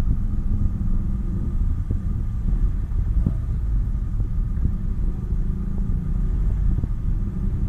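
Suzuki Splash's engine idling steadily with the air conditioning switched on, a low even rumble.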